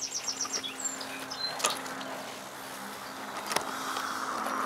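Outdoor lakeside ambience: a steady low hum, with a quick run of bird chirps at the start and two sharp clicks, and a hiss that swells slightly near the end.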